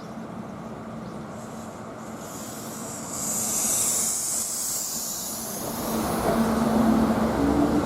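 Kintetsu limited express electric train drawing near: a high hiss from the rails, then from about six seconds in a traction motor whine that grows louder and slowly rises in pitch.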